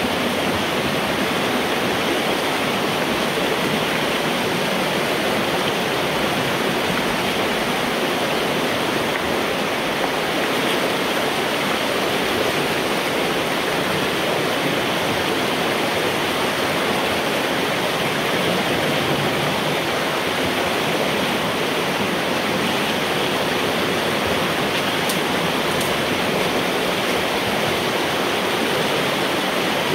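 Backed-up floodwater rushing steadily through a culvert pipe as a beaver dam blocking it is cleared, heard from inside the pipe.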